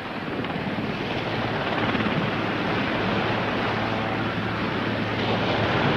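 Helicopter in flight: a steady rushing noise with a low hum, growing louder over the first couple of seconds and then holding.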